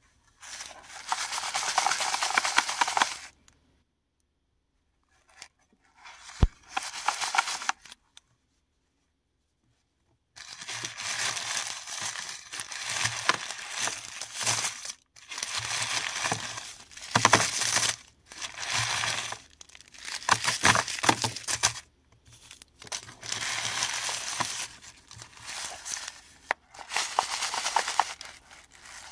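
Mothball packaging being torn open and crinkled by hand, in bursts of rustling with sharp clicks and short pauses between them.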